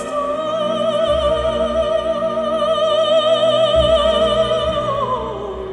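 Symphonic film-score music: a solo melody holds one long high note with vibrato for about five seconds, then slides down near the end, over a low sustained accompaniment.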